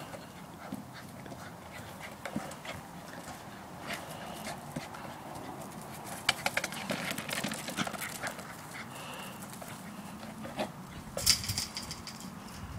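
West Highland white terrier playing with a basketball: dog sounds amid scattered light taps and scuffs, with a louder cluster of knocks about eleven seconds in.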